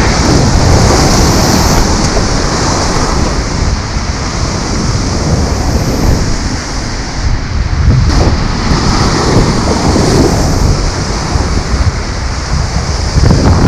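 Rough sea surf washing and breaking against rocks, with wind buffeting the microphone; the surf swells louder about eight seconds in and again near the end.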